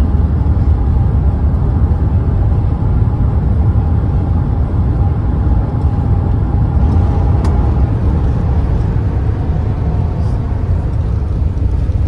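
Airbus A380 cabin noise during the landing rollout, heard inside the cabin: a loud, steady low rumble, with a faint whine that fades out about two-thirds of the way through as the aircraft slows on the runway with its spoilers raised.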